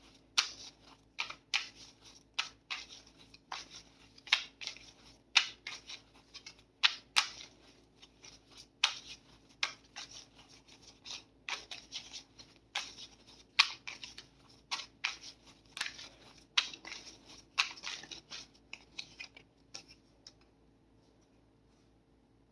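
Tarot cards being shuffled and handled by hand: a run of short, sharp strokes, one or two a second, that stops about twenty seconds in.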